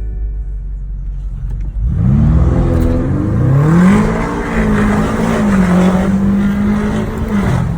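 BMW M5 Competition's twin-turbo V8 accelerating hard: about two seconds in the engine note climbs, climbs again, then holds at high revs before dropping off near the end as the throttle is lifted.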